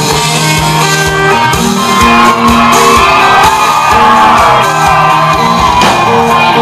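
Live country-rock band with electric guitars playing loud between sung lines of a song, with the crowd shouting and whooping.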